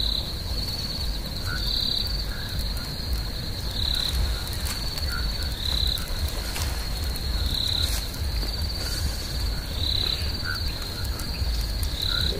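Crickets trilling steadily at a high pitch, the trill swelling into a louder chirp about every two seconds, over a low steady rumble.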